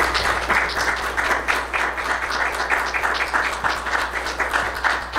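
Audience applauding with steady, dense hand-clapping after a speech.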